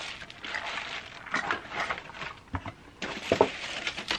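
Crinkly plastic and paper wrapping rustling as items are unwrapped and lifted out of a cardboard box, with irregular small crackles.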